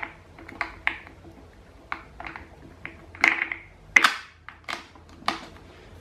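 Plastic clicks, taps and scrapes of a four-blade fan propeller being seated on the motor shaft and its plastic spinner cap screwed on by hand, with two louder clatters about three and four seconds in.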